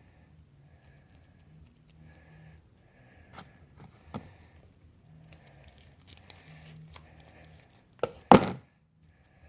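Sticky homemade slime being mixed and worked by hand: soft, uneven sticky crinkling and pulling noises, with a couple of small clicks, then one loud, brief handling noise about 8 seconds in.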